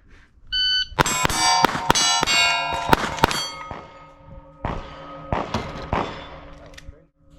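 Shot-timer start beep, then a fast string of .22 rimfire shots with steel plates ringing as they are hit, ending with three slower, spaced shots.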